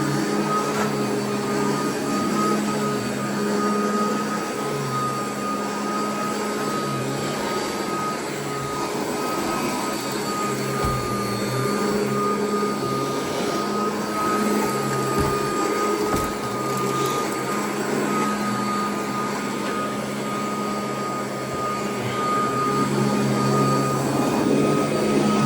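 Royal vacuum cleaner running on carpet: a steady, loud motor hum with a high whine on top, its lower tones shifting in and out.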